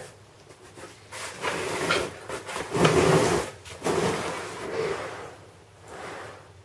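Corrugated cardboard boat sections scraping and rubbing against each other as one is slid and pushed onto the other, in several scraping strokes, the loudest about three seconds in.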